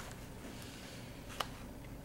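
Quiet room tone with a single short click about one and a half seconds in.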